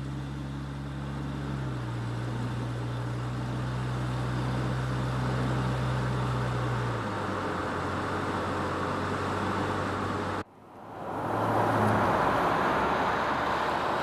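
Car engine running with a steady low hum that drops in pitch twice. A little past ten seconds it cuts off abruptly, giving way to louder rushing road and traffic noise that swells up.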